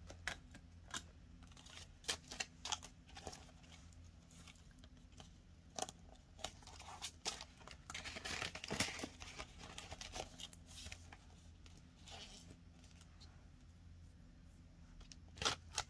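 Paper banknotes and a plastic binder pocket rustling and crinkling softly, with scattered small crackles, as bills are handled and slid into a cash-budget sleeve.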